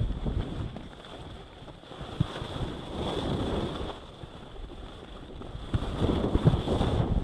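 Wind rushing over an action camera's microphone and skis scraping across packed snow on a downhill ski run, swelling and fading several times with the skier's turns and speed.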